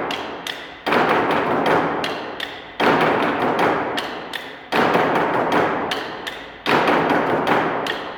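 Large Chinese drums struck in slow single beats about two seconds apart, four in all, each boom dying away before the next, with quieter clicks between.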